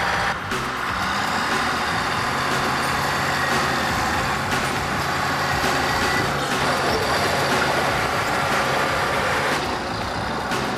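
Bulldozer's heavy diesel engine running steadily as the machine works.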